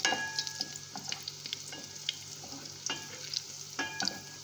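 Minced garlic sizzling in olive oil in an aluminium pot, still pale and not yet browned, while a wooden spatula stirs it. The spatula knocks against the side of the pot several times, some knocks leaving a short metallic ring.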